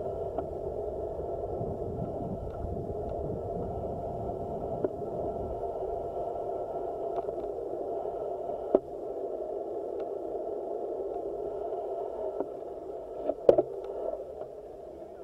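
Road bicycle rolling and slowing to a stop, heard through a handlebar-mounted action camera: a low rumble that dies away about halfway through over a steady hum, with a few sharp clicks, the loudest near the end.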